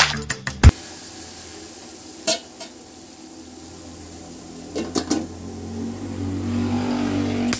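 Music cuts off within the first second. A metal pot lid then clinks against its pot on a gas stove, once about two seconds in and several times around five seconds, over a steady low rush from the burner that grows louder near the end.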